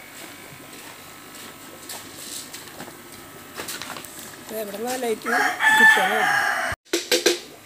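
A single long bird call, about two seconds, wavering in pitch, more than halfway through; it ends abruptly.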